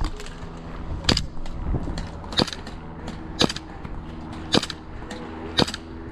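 Airsoft guns firing single shots: five sharp cracks spaced about a second apart, with fainter clicks between them.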